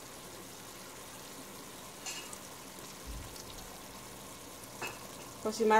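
Strips of beef frying in oil in a pot: a steady, faint sizzle, with a few light knocks.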